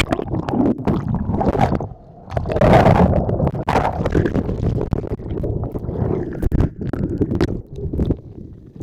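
Muffled churning and gurgling of breaking surf close around the microphone, with splashing and many small knocks, loudest about three seconds in after a brief lull.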